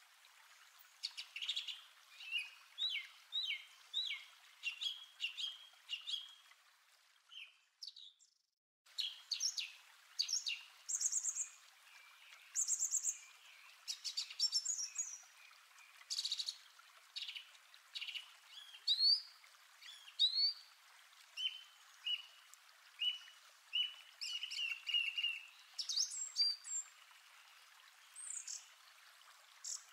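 Birdsong: many short chirps, whistled notes and quick trills from several birds, with a brief break about eight seconds in.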